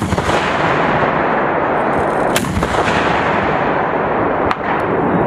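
Shots from 84 mm M3E1 Carl Gustaf recoilless rifles: sharp reports at the start, about two and a half seconds in and near the end, over a continuous loud rushing noise.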